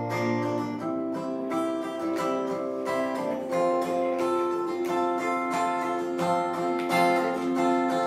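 Acoustic guitar played live, a slow ballad's chord accompaniment with no singing over it.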